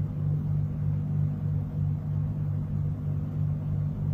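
A steady low hum with a slight slow swell, with no other sound on top of it.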